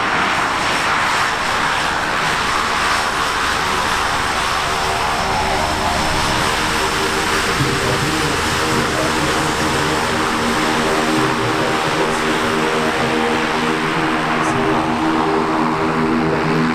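Pilatus PC-6 Turbo Porter's PT6A turboprop engine and propeller running steadily on the ground as the aircraft taxis. The propeller's humming tone grows stronger about halfway through.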